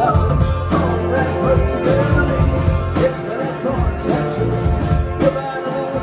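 Live band playing a country-rock song with banjo, pedal steel guitar and drums keeping a steady beat.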